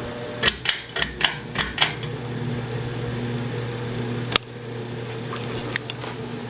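Harbor Breeze Marco Island 52-inch ceiling fan running with a steady low hum with higher overtones, the motor hum that makes this fan very noisy. A quick run of sharp clicks comes about half a second in, and one more sharp click about four seconds in.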